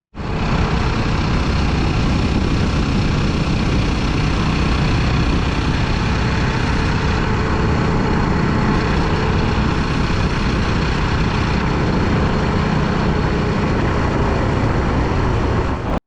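Adventure motorcycle riding at a steady speed: engine running with heavy wind noise, starting and stopping abruptly.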